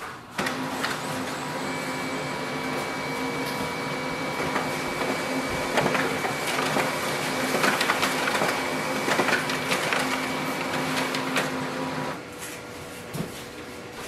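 Brother HL-L2370DW compact laser printer printing a three-page job: a steady mechanical whir with a high whine and scattered clicks of paper feeding. It starts just after the beginning and stops about twelve seconds in, leaving a quieter steady fan hum.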